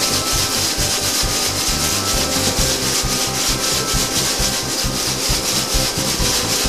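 Deep-fried arrowhead (ngaku) chips being rubbed inside a terry-cloth towel to blot off the frying oil: a steady, crisp rustling scrub of chips against cloth in quick repeated strokes.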